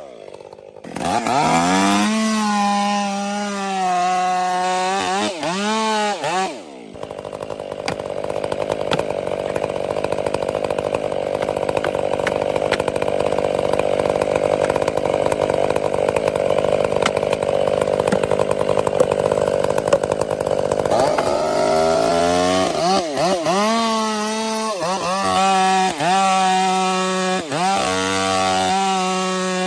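Gasoline chainsaw revving up and down several times, then cutting into a tree trunk under load for about fourteen seconds with a steady sawing sound. It then returns to repeated revs.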